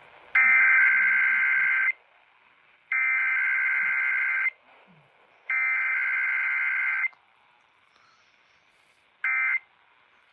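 Emergency Alert System SAME data header: three identical bursts of harsh, warbling digital tones, each about a second and a half long with about a second's pause between, announcing a test alert. About nine seconds in comes one much shorter burst, the start of the end-of-message code.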